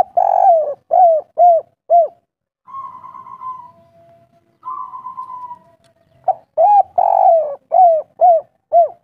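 Spotted dove cooing: two bouts of quick, arched coos, each bout with one longer drawn-out coo among five or six short ones. Between the bouts comes about three seconds of softer, rougher sound.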